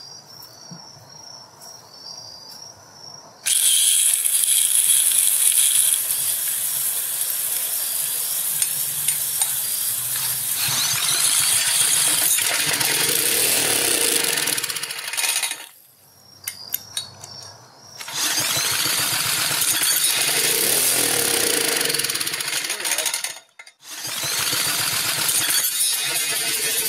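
Small gasoline engine, primed with fuel poured into the spark-plug hole, firing and running loudly. It starts abruptly about three and a half seconds in and cuts out briefly twice, about 16 and 24 seconds in.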